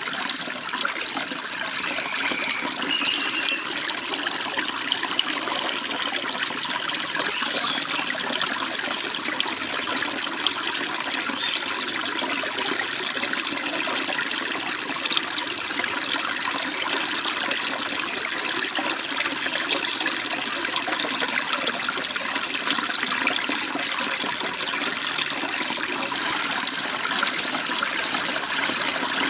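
Forest stream babbling steadily, a continuous even rush of flowing water, with a few brief faint bird chirps in the first few seconds.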